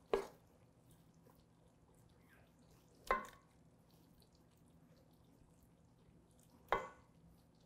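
A metal ladle clinking three times, about three seconds apart, while scooping stewed black-eyed peas out of a stainless steel stockpot and onto a plate; the middle clink rings briefly.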